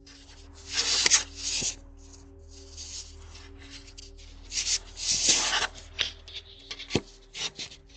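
Scraping and rubbing right against a Ring doorbell camera's microphone as the camera is wrenched off its mount: irregular bursts, the loudest about a second in and around five seconds in, with a few sharp knocks near the end.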